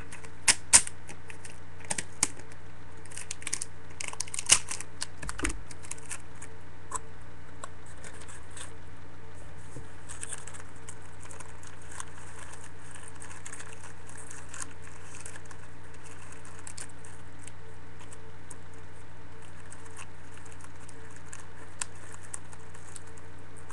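Plastic cup and sticky tape being handled on a table: several sharp taps and clicks in the first few seconds, then faint crinkling and scratching over a steady low hum.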